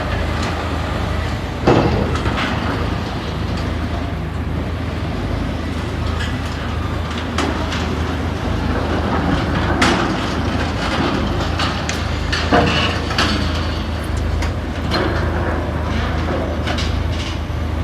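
Heavy machinery running with a steady low hum and rumble, broken by several sharp metallic knocks and clanks.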